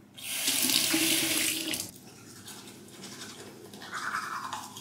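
Bathroom sink tap running into the basin for under two seconds as a toothbrush is wetted, then shut off. Near the end, the rhythmic scrubbing of teeth being brushed begins.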